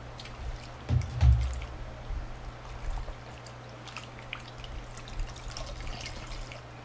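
Hands rinsing and wringing a wet cloth in a glass bowl of water: sloshing, with water dripping and trickling back into the bowl. A low thump about a second in.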